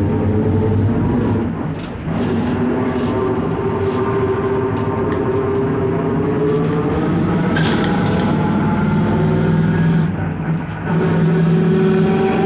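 Mercedes-Benz OF-1721 BlueTec5 bus under way, its drivetrain drone carrying several steady tones, with the rear differential growling. The tones rise slowly in pitch, and the sound dips briefly twice, about two seconds in and near the end.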